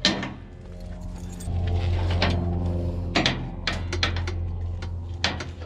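Light metallic clinks from a ratchet strap's carabiner and ratchet hardware as the strap is handled and routed to the frame, over a steady low hum that gets louder about a second and a half in.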